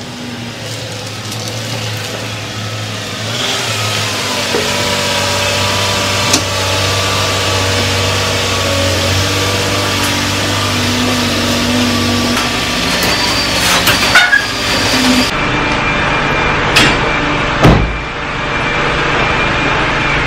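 Minivan engine running as the van pulls slowly into a garage, a steady hum under a broad hiss. Near the end come a few sharp knocks and one heavy thud.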